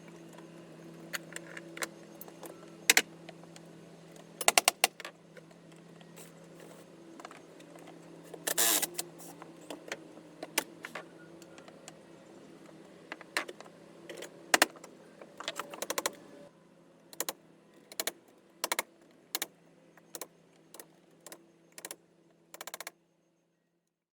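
Steady low hum with many sharp clicks, clinks and knocks scattered through it, including a quick rattle of clicks about a third of the way in; all of it cuts off suddenly near the end.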